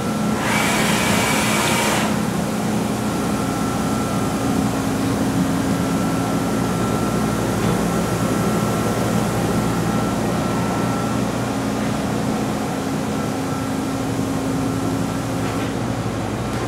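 Steady hum of running machine-shop equipment with a constant whine, and a hiss about half a second in that lasts about a second and a half.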